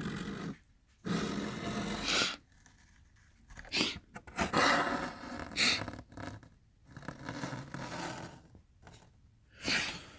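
Repeated short bursts of rustling and scraping as plastic DVD cases are handled and shuffled on a shelf during a search.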